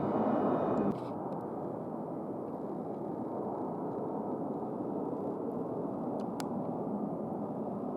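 Jet airliner engine noise: a steady rush that drops suddenly in level about a second in.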